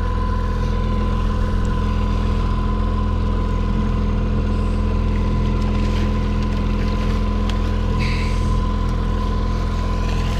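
Outboard motor on a Ranger 620 fishing boat running steadily in reverse, backing the boat up.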